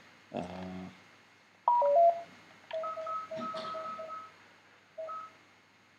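Electronic beeps: a short falling chime about two seconds in, then a quick run of steady beeps and a single beep near the end.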